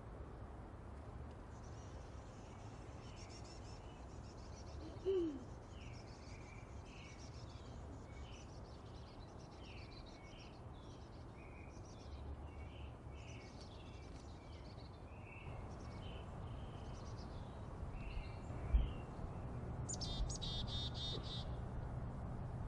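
Chickadees, fledglings among them, calling: a steady run of short high chirps, with a quick buzzy string of notes about twenty seconds in. A single short, low falling sound about five seconds in, over a low steady hum.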